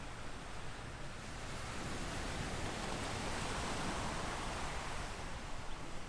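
Ocean surf: a wave swells to its loudest in the middle and washes out again.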